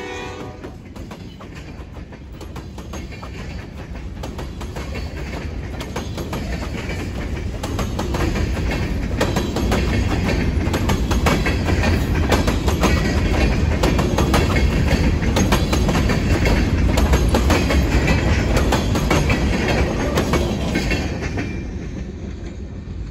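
Freight train of covered hopper cars rolling past: steady rumble of steel wheels on rail with sharp clicks as the wheels cross rail joints. It grows louder toward the middle and fades near the end as the last car goes by.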